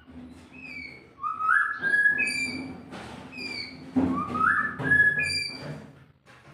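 White-rumped shama (murai batu) singing: a phrase of clear whistled notes, some sliding up and some sliding down, sung twice about three seconds apart.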